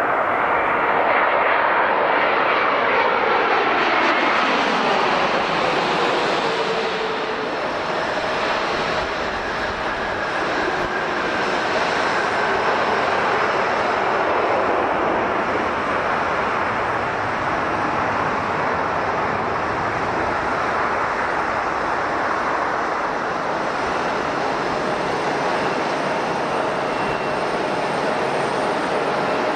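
Boeing 787-8 jet engines (Rolls-Royce Trent 1000) as an airliner passes low overhead on landing approach, its whine falling in pitch over the first few seconds. This gives way to a steady jet engine idle as a 787-8 taxis.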